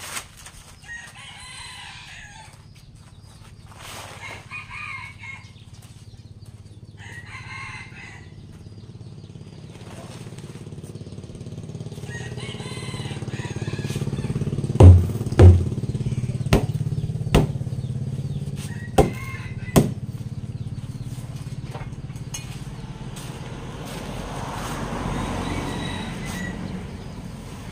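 Chickens calling, with a rooster crowing, in the first half. Then two heavy thumps and several sharper knocks as a plastic drum is struck with a wooden stick, and near the end a soft rush of soaked rice grain sliding out as the drum is tipped.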